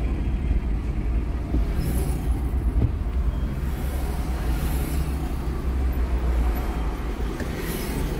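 Car driving on a city road: a steady low engine and road rumble, with a few brief hissing swells from passing traffic about two seconds in, midway and near the end.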